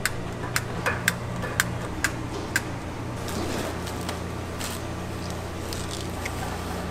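Kitchen dishes and utensils clinking: about seven sharp clinks in the first two and a half seconds, over a steady low hum.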